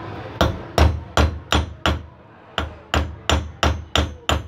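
Hammer blows on metal, about three a second, in a run of five and then a run of seven after a short pause: a bent steel wire being hammered into shape on a bench vise.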